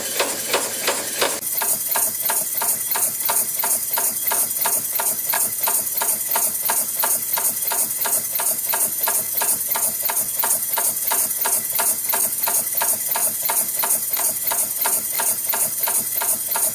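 CNC wire and strip spring forming machine (YHM FB-210A) running in production, its press and forming tools clacking in a fast even rhythm of several strokes a second as it forms small spring clips from flat strip. About a second and a half in, the rhythm quickens slightly and a steady high hiss comes in.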